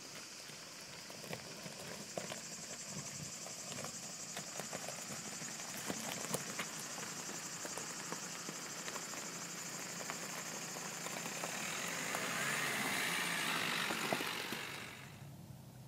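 Dacia Duster dCi diesel 4x4 driving slowly over a stony track, tyres crunching on gravel with scattered clicks of stones, growing louder as it comes close near the end and then falling away. A steady high insect buzz runs underneath.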